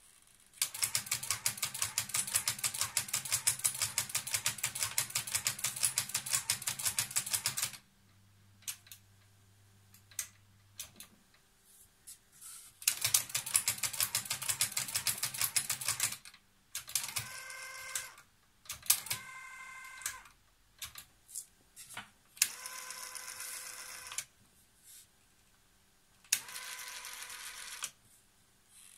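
Exposed tape transport mechanism of a Technics RS-B60 cassette deck chattering with rapid clicks in bursts, a long one of several seconds followed by shorter ones as its keys are pressed, with a low motor hum between the first bursts. The later bursts also carry a steady whine. The deck's automatic control is faulty.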